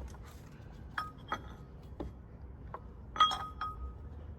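Light metallic clinks and taps as a steel bolt knocks against the water pump pulley while it is lined up with its hole. There are several single ticks, then a louder clink about three seconds in that rings briefly.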